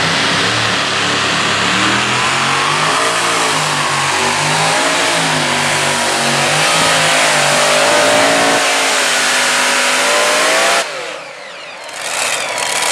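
Multi-engine supercharged modified pulling tractor at full power dragging the sled, its engine pitch rising and falling repeatedly. The engines cut off suddenly about eleven seconds in.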